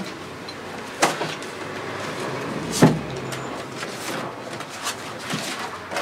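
A painting tool scraping and dabbing oil paint on a stretched canvas, with two sharper, louder strokes about a second in and just before the middle.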